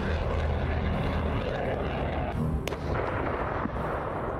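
Rocket artillery fire and explosions: a continuous heavy rumble with one sharp crack a little past the middle.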